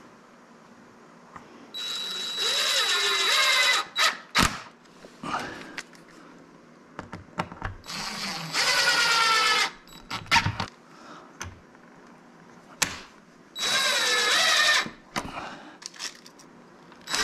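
A DeWalt 20V cordless impact driver drives screws through a metal door hinge into wood. It runs in three bursts of one to two seconds each, its motor pitch rising and falling, and a fourth burst starts at the very end. Light clicks and knocks of handling come between the bursts.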